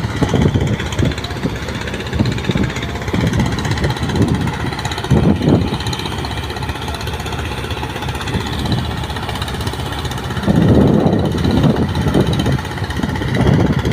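Excavator's diesel engine running, a continuous low rumble that swells louder about five seconds in and again for a second or so near eleven seconds.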